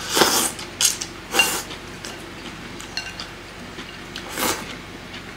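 A man slurping ramen soup and noodles straight from the bowl, four slurps with the first and third the longest. A few light clicks of chopsticks against the ceramic bowl fall between them.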